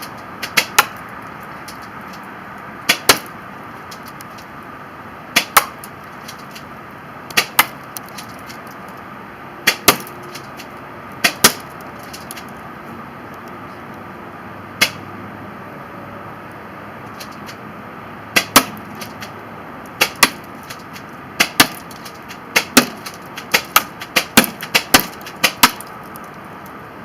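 JT Splatmaster z200 spring-powered toy paintball shotgun being fired about fifteen times, each shot a sharp double snap. The shots come a couple of seconds apart at first and faster toward the end.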